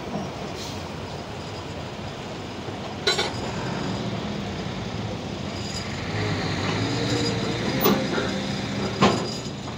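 Diesel engine of a tanker semi-truck running at low speed as the rig creeps through a shallow wheel-sanitizing pool, with sharp knocks about three, eight and nine seconds in.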